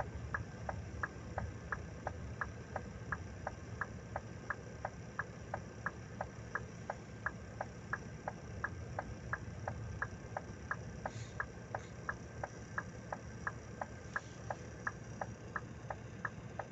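Indicator flasher relay clicking evenly in a truck cab, about three clicks a second, over the low steady running of the stationary truck's diesel engine.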